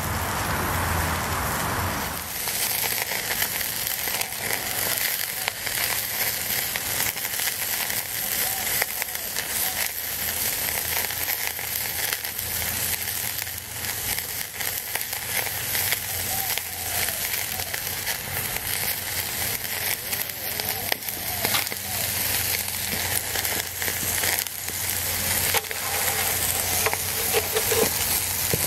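Prosciutto-wrapped pork loin sizzling on a wire grate over hot charcoal, a steady sizzle with many small crackles as fat cooks and drips onto the coals.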